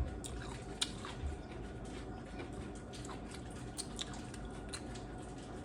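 A person chewing close to the microphone while eating crunchy tacos and tostadas: scattered small crunches and mouth clicks, a few each second.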